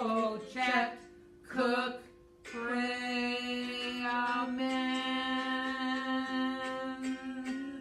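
Women singing a short theme song without accompaniment: a couple of brief bending phrases, then one long held note of about five seconds that stops just before the end.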